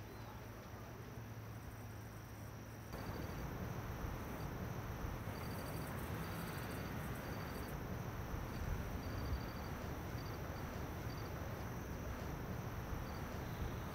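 An insect chirping in short trains of rapid, high-pitched pulses that start and stop again and again, over a steady low rumble and hiss; the background gets louder about three seconds in.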